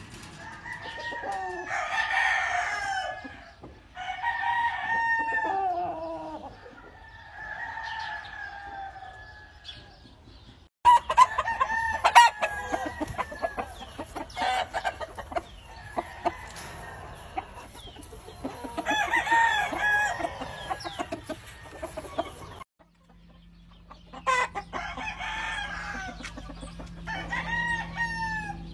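Game roosters crowing again and again, one long crow after another every few seconds, with clucking between the crows.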